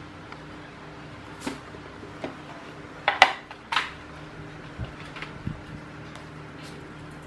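A series of separate clinks and knocks from bowls and a steel tray being handled, the loudest a little after three seconds, over a steady low hum.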